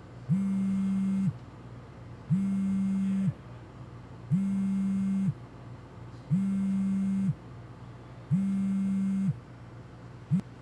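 iPhone vibrating with an incoming call: five low buzzes, each about a second long and two seconds apart, then a brief sixth buzz cut short near the end.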